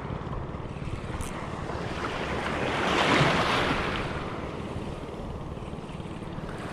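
Small sea waves washing in around the shallows, with one wave swelling and breaking about three seconds in; wind buffets the microphone throughout.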